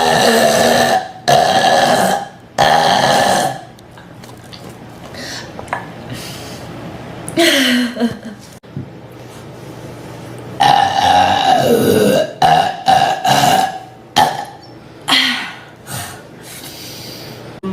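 A woman burping again and again, about a dozen belches: three loud ones close together at the start, then after a quieter pause a longer one that slides down in pitch, a long wavering one about eleven seconds in, and a quick run of shorter burps near the end.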